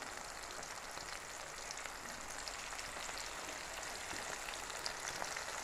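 Jackfruit slices deep-frying in hot oil in a wok: a steady sizzle with fine crackling.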